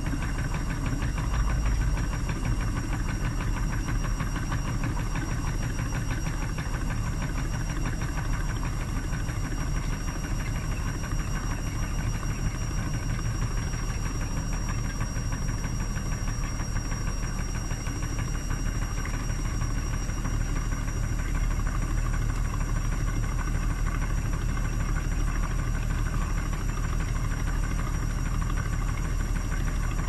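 Hotpoint front-loading washing machine in its spin cycle with the pressure switch removed, so the drum still holds foamy water. The motor runs steadily while the water churns and sloshes in the turning drum.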